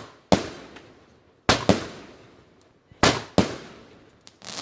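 Fireworks going off: about six sharp bangs at uneven intervals, some in quick pairs, each trailing off in an echo.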